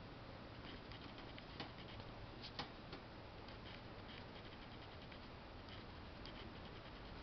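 Faint, rapid soft clicking of a rabbit's teeth while its head is stroked, with two louder clicks about one and a half and two and a half seconds in. This is light tooth-grinding, the 'purr' of a contented rabbit.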